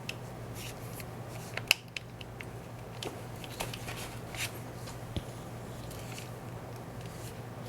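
Scattered light clicks and rustles of hands handling gimbal parts and packaging while trying to free a part that is stuck, over a steady low hum.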